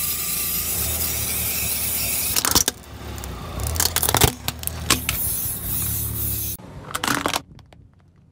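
Car tyre creeping over a plastic wind-up toy on asphalt, over a low engine hum and the hiss of the tyre on grit, with sharp plastic cracks and crunches as the toy is crushed, the loudest about four seconds in. The sound drops away near the end, with a few more cracks.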